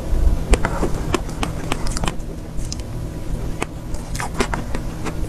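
Close-miked eating of soft cake: mouth and chewing sounds with scattered sharp clicks. A cluster of clicks near the end comes as a metal spoon scrapes and taps in a plastic dessert box.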